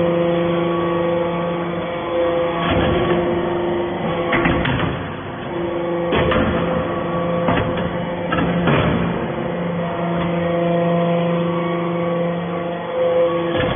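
Metal-chip baler running: a steady machine hum that weakens and comes back, with several sharp clanks and knocks spread through it.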